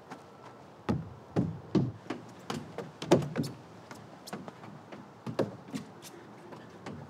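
Hands and feet knocking and thumping on a hollow plastic playground climbing structure as a man clambers over it: a run of irregular knocks, the loudest about three seconds in.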